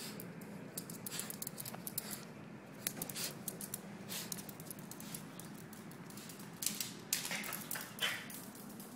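A small dog's claws clicking and skittering on a hard floor as it races about, in irregular runs of quick taps that grow busier near the end.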